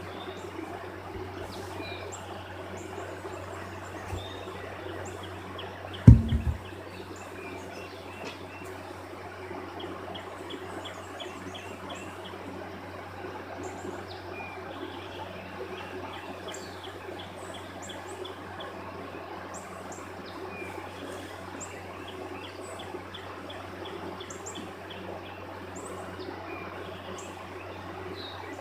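Small birds chirping and trilling in repeated short phrases over a steady low hum, with one sharp low thump about six seconds in.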